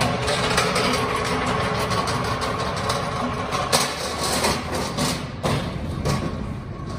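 Manual pallet jack being pulled with a load, its steel-framed wheels rumbling and rattling over concrete, with a few sharp knocks in the second half as it crosses the dock plate into the truck's box.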